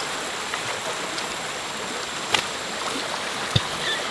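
Slingshot shot: a single sharp snap of the released band about two seconds in, then a short dull thud about a second later, over a steady rushing background noise.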